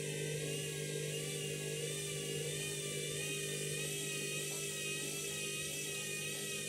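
Candy washing machine's motor whining steadily as the drum turns at speed, its high pitch wavering slightly over a steady low hum, while it tries to spin an out-of-balance load of bedding.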